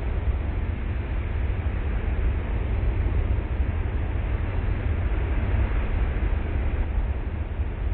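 Steady, rumbling wind buffeting the microphone over the rushing wash of breaking surf.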